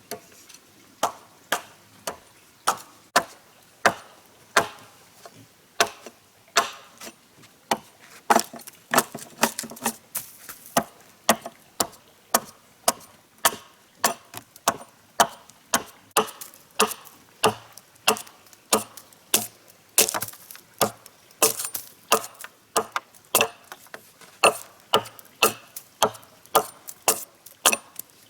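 Wood being chopped with a blade: a steady run of sharp strikes, about two a second.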